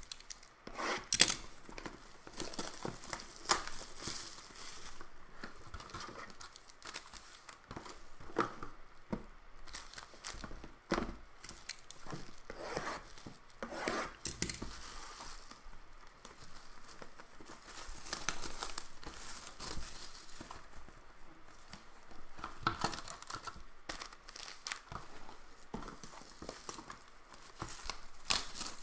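Plastic shrink wrap being torn and crumpled off sealed trading card boxes: irregular crackling and crinkling bursts, with a few sharper snaps, the strongest about a second in.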